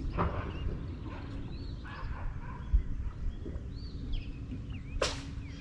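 Birds chirping in short arching notes, over a low rumble of wind on the microphone and a faint steady hum. A brief sharp swish comes about five seconds in.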